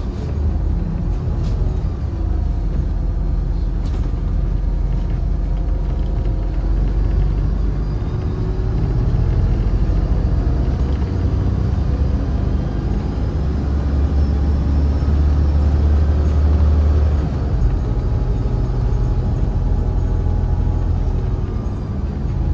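MAZ-203 city bus on the move, heard from inside the passenger cabin: a steady engine and road rumble whose engine note slowly rises and falls with speed, strongest in the low range.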